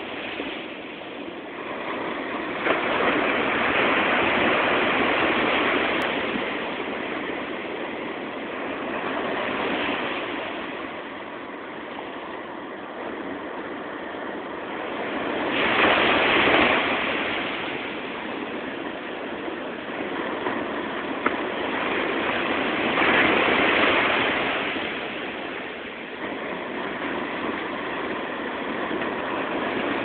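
Ocean surf breaking and washing up a sandy beach: a steady rush that swells louder three times, a few seconds each, as waves come in.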